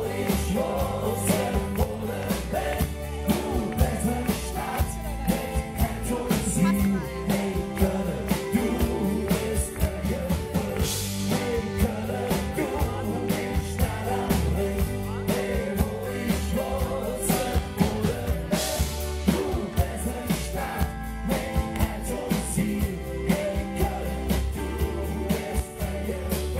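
Live rock band playing a song in Kölsch dialect: sung vocals over electric bass, acoustic guitar and a steady drum beat.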